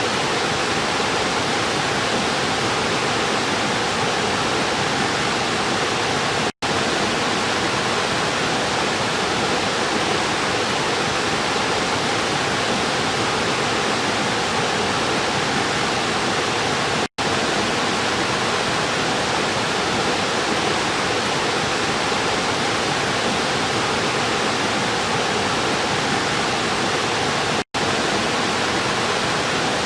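River water rushing in a steady, even wash. It cuts out for an instant three times, about ten seconds apart.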